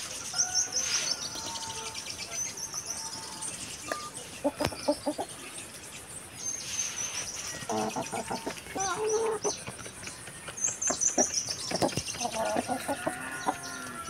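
Chickens clucking in short runs several times, with songbirds singing high, falling trills in the background.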